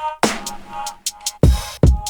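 Background music with an electronic beat: heavy kick drums and sharp snare hits under a steady synth chord.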